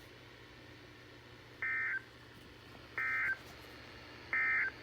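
Three short, identical bursts of warbling two-tone digital data from a NOAA Weather Radio broadcast, about a second and a half apart, over a low hum. These are SAME-coded data bursts, and their shortness fits the end-of-message code that closes an alert.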